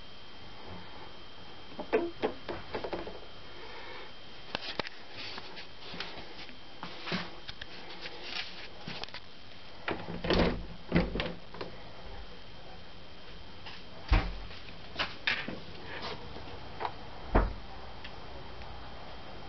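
Plastic cat flap being pushed and swinging in its frame: a run of irregular clacks and knocks, some in quick pairs and clusters. A faint steady high tone runs underneath.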